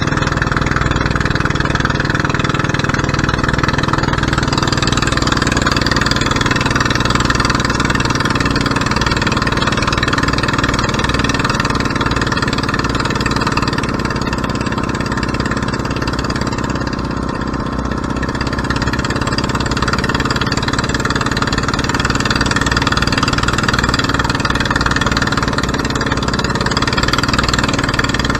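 Fishing boat's engine running steadily with the boat under way.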